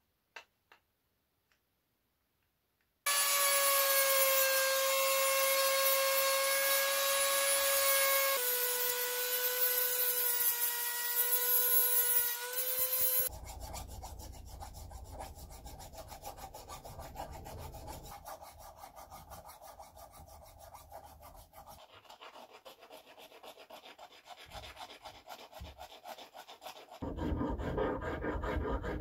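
A handheld electric rotary tool runs for about ten seconds with a steady high whine, dropping slightly in pitch partway through. It is followed by hand rubbing and scraping strokes on the wooden and antler knife handle, which get louder near the end.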